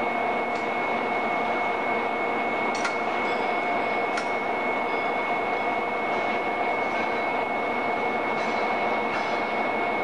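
Steady machinery drone with a constant high whine over a lower hum, from the bogie-exchange shed's equipment while a passenger carriage stands on its lifting jacks for the wheel change. A few faint clicks come about three and four seconds in.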